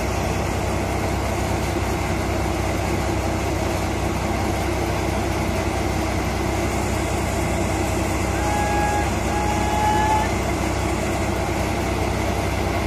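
Motorised paddy thresher and pre-cleaner running steadily at work, a constant mechanical drone and rush of air and grain.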